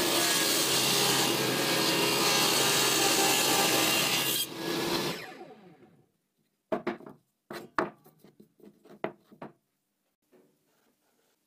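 Power saw running steadily, then switched off and winding down over about a second and a half, starting about four and a half seconds in. After it, about half a dozen light knocks of a wooden block being moved and set down on the plywood sled.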